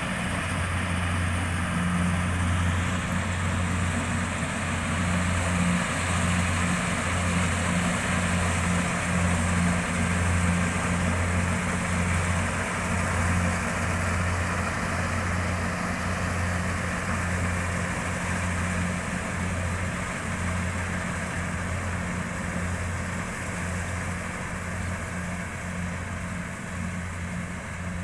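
Rice combine harvester running steadily: a constant low engine hum under a wide wash of machinery noise, easing off a little toward the end.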